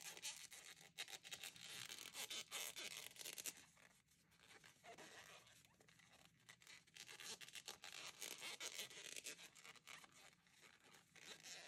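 Faint rustling and scraping of a crochet hook drawing thick t-shirt yarn through single crochet stitches. It comes in two stretches with a quieter pause of a few seconds between them.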